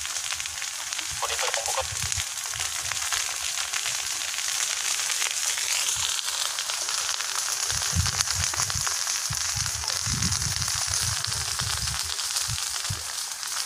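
Large land fire burning close by: a dense, steady crackle of many small pops. Low rumbling comes in from about eight seconds in.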